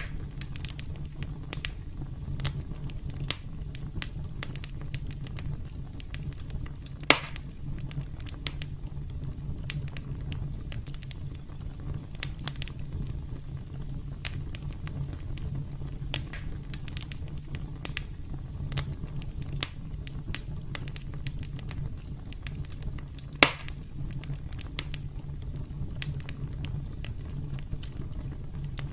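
Campfire burning: a steady low rumble under frequent small crackles and snaps of burning wood, with two louder pops about a third of the way in and again past the three-quarter mark.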